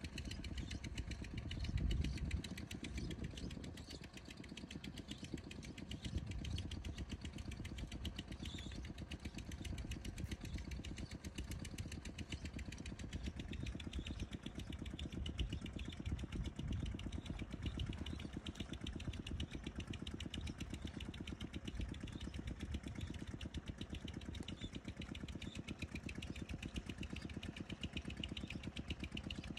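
A small engine idling steadily with an even, fast pulse. A louder low rumble comes through about two seconds in.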